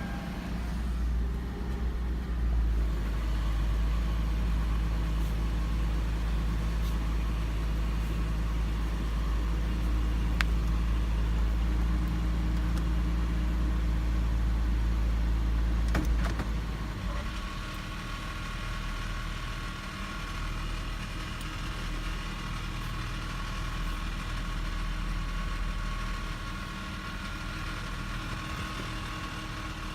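2006 Toyota 4Runner's 4.0 L V6 idling. About halfway through there is a click and the sound changes: the deep low rumble drops and a steady higher metallic rattle comes in. This is the rattle that appears only with the transmission in drive.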